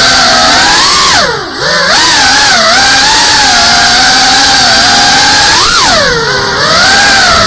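FPV quadcopter's electric motors and propellers whining loudly, the pitch wavering up and down with the throttle. About a second in, and again near six seconds, the whine drops steeply in pitch and level as the throttle is cut, then climbs back up.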